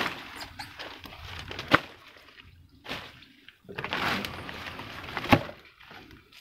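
Two sharp knocks amid rustling, a light one near two seconds in and a louder one about five seconds in, with a quiet spell between them.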